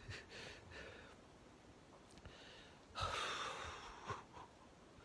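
A man ill with Covid-19 breathing laboriously: faint breaths, then one heavy, audible breath about three seconds in.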